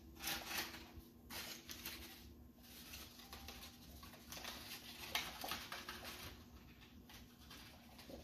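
Several soft, brief rustles and scuffles: a crumpled paper ball being handled and dropped on a laminate floor while a small poodle puppy scampers around it.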